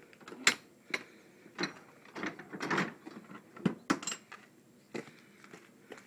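A door on a van's box body being swung shut and latched, followed by a string of irregular clicks, knocks and clanks as the base of the box is worked on by hand. There is no motor running.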